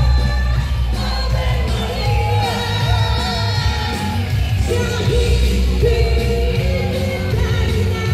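Female singer singing a pop song live, backed by a military band with a strong bass line and a steady drum beat.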